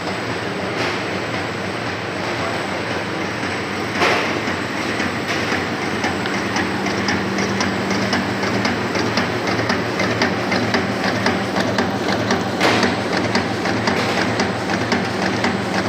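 Bread and pia forming line machine running, with a steady hum under a fast, rhythmic clatter of clicks. A sharp knock comes about four seconds in, and the hum grows stronger about two seconds later.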